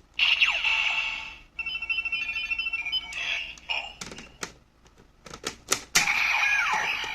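Electronic sound effects from a Kamen Rider Den-O Ridewatch toy. It opens with a sweeping sound, followed by a run of beeping tones and a few clicks, and ends with another loud burst that has a falling glide near the end.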